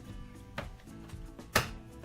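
Background music, with two sharp knocks from kitchen work over it: a light one about half a second in and a louder one about a second and a half in.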